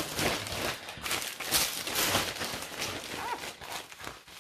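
Plastic packaging rustling and crinkling as it is handled and opened, in quick irregular bursts, with a brief short squeak about three seconds in.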